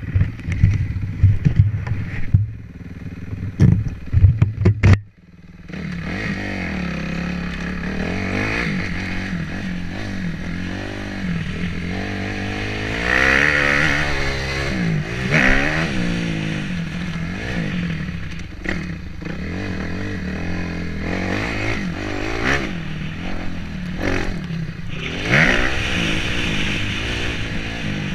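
Motocross bike engine being ridden hard, its pitch repeatedly climbing and dropping with throttle and gear changes, heard from a camera mounted on the bike. For the first five seconds loud irregular buffeting covers it, breaking off suddenly.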